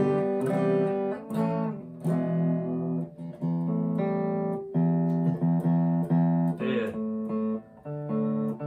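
Harley Benton SC-450 Plus single-cut electric guitar being played: a run of picked chords and single notes, each ringing up to about a second before the next, with a short scrape of the strings about seven seconds in.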